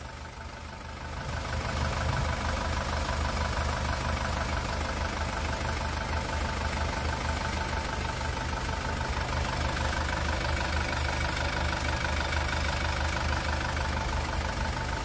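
Freshly rebuilt 2.2-litre diesel engine of a 2018 SsangYong Rexton Sports idling steadily, getting louder about a second in. It runs smooth and calm, without heavy knocking or shaking, after the block was bored and the crankshaft, pistons and bearings were replaced.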